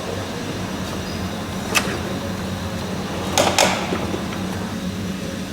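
Steady low workshop hum, with a sharp click about two seconds in and a pair of knocks about a second and a half later.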